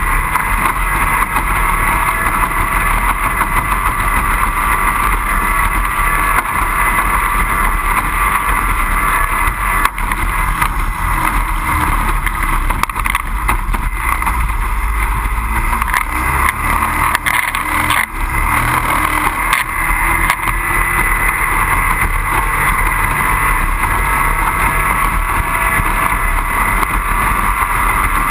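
Outboard engine of a 25 hp racing powerboat running steadily, with water and wind noise, holding a constant loud pitch with only a brief dip about eighteen seconds in.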